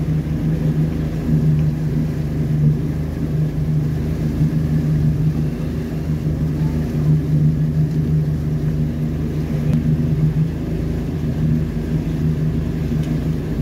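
A tour boat's engine running steadily while under way, a constant low drone heard from on board.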